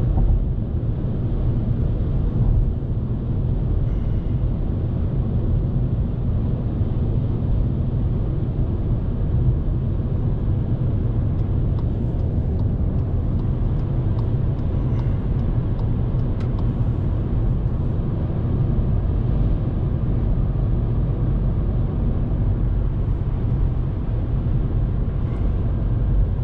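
Steady cabin noise of a 2019 Volkswagen Polo on the move: its 1.0-litre three-cylinder turbo petrol engine droning under a low road and wind rumble, which the car's modest sound insulation lets through.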